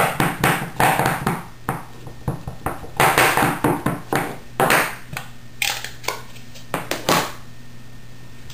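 Light, quick taps of a Versamark ink pad being dabbed onto an upturned rubber stamp to ink it. A rapid run of taps at first, then scattered taps and knocks that stop shortly before the end.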